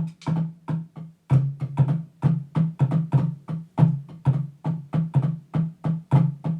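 A steady drum beat played through an amplifier, about three hits a second, over a pulsing low bass tone.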